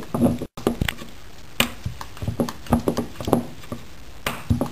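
Rolling pin knocking and rolling on a board as roti dough is rolled out thin, in repeated irregular knocks about two a second.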